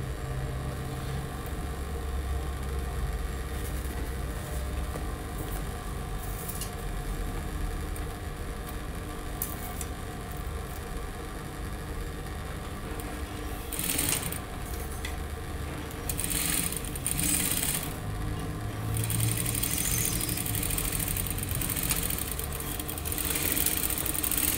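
Industrial sewing machine stitching a boning casing. Its motor hums steadily, with louder runs of stitching about halfway through, again shortly after, and over most of the last five seconds.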